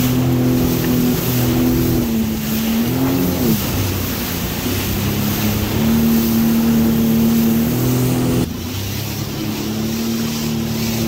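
Sea-Doo FishPro personal watercraft's engine running under way, with wind and water rushing past. The engine note dips and comes back up about three seconds in, then drops suddenly in loudness about eight seconds in and runs on at the lower level.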